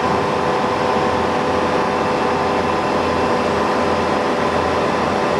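UNION BFP 130 floor-type horizontal boring mill running under power, a steady machine hum with a few constant whining tones that do not change.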